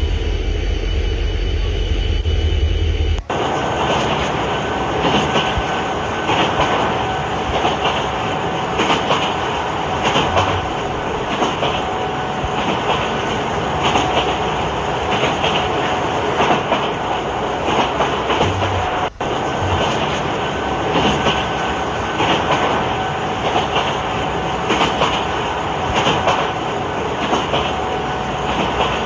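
Train running on its track, a steady clatter with a regular beat of wheel clicks and a faint steady whine. The sound cuts off abruptly about three seconds in and again near nineteen seconds, each time going straight on with the same running sound.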